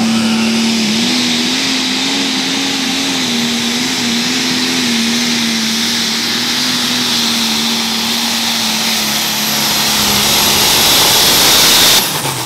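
Light pro stock pulling tractor's turbocharged diesel running flat out under load, with a high turbo whistle over the engine note. Near the end the throttle is cut suddenly and the whistle winds down.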